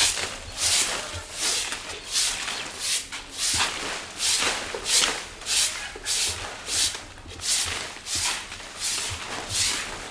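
A broom sweeping in a steady rhythm of short swishing strokes, about one and a half a second.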